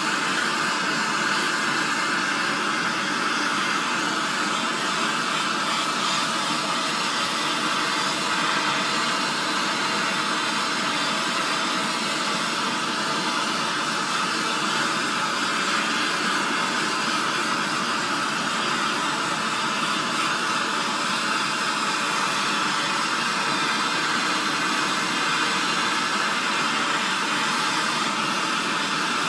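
Handheld gas blowtorch burning with a steady hiss, its flame on the pot of a mercury retort, heating gold-mercury amalgam to drive the mercury off.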